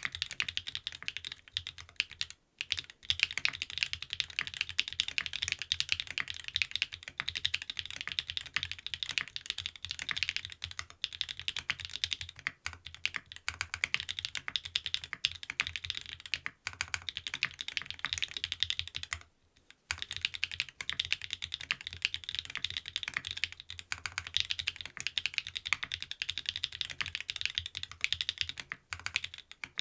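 Continuous rapid typing on a TKD Cycle 7 custom mechanical keyboard with stock SW x Gateron Deepping switches, an aluminium plate, a gasket mount and PBT keycaps: a dense run of keystroke clicks, broken by short pauses about two and a half seconds in and near twenty seconds.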